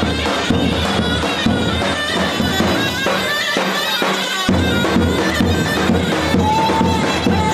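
Davul and zurna playing a Turkish folk dance tune: a shrill, reedy melody over a steady bass drum beat. The drum drops out for about a second and a half near the middle, then comes back in.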